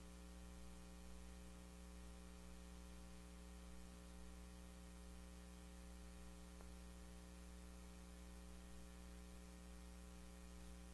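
Near silence, with only a faint steady electrical hum and a soft hiss.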